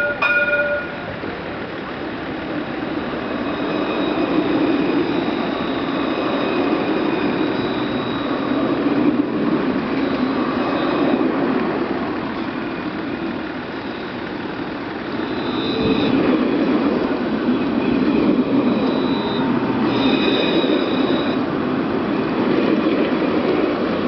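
Alstom Citadis trams passing close by: a steady rumble of wheels and motors that swells about four seconds in and again from around fifteen seconds, with high, thin whining tones over it at times. A short bell-like tone sounds at the very start.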